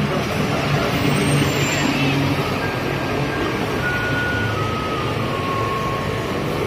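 Garbage truck engine running steadily while the truck is stopped for rubbish collection. Over it come a few faint held electronic notes, each a step lower in pitch than the one before.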